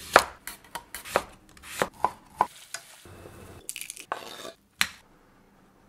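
Kitchen knife cutting through a carrot on a wooden cutting board, about seven sharp chops in the first two and a half seconds. Then the shell of a hard-boiled egg crackles as it is peeled, with one last sharp tap near the end.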